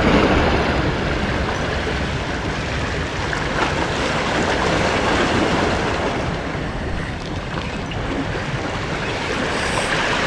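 Sea waves washing steadily against a rock breakwater, with wind buffeting the microphone.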